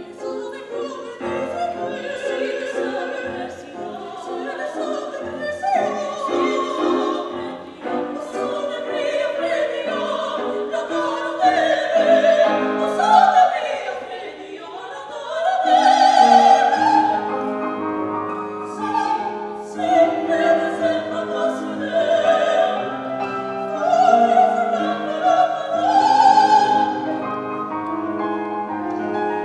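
Classical operatic singing by female voices with piano accompaniment, the voices swelling to loud held notes with vibrato several times.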